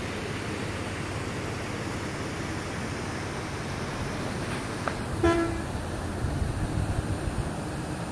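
A steady hiss of background noise with a single short vehicle horn toot about five seconds in, followed by a second or so of low rumbling.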